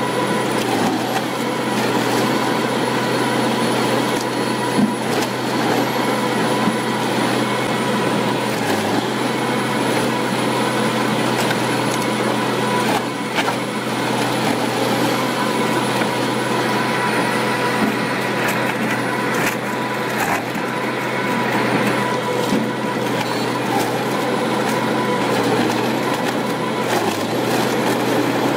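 Wood shredder running steadily under load, its motor droning as the cutters crush and splinter logs and stumps, with scattered sharp cracks of breaking wood.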